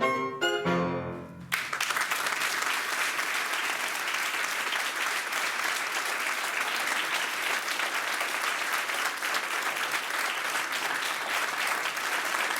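An orchestra plays the last few short, accented chords of a czardas, which stop about a second and a half in. The audience then breaks straight into steady applause.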